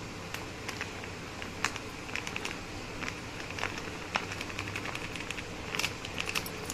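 Thin plastic bag crinkling and crackling in the hand as moong dal flour is tipped out of it into a steel bowl: scattered small irregular crackles, more of them near the end.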